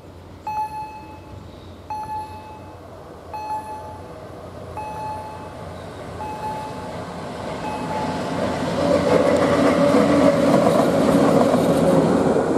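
PKP class ET22 electric locomotive running light, approaching and passing, growing louder from about eight seconds in. Earlier, a level-crossing warning bell dings about every second and a half.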